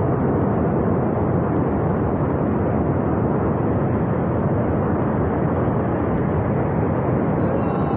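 Steady, heavy rumble of a landslide pouring debris down a steep mountain gorge.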